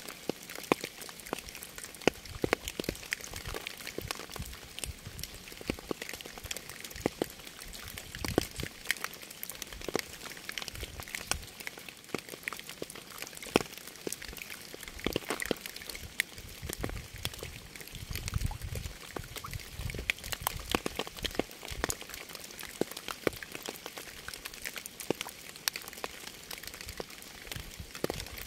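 Steady rainfall: a continuous hiss with many separate raindrops landing close by as sharp, irregular ticks. A low rumble swells a couple of times, longest in the second half.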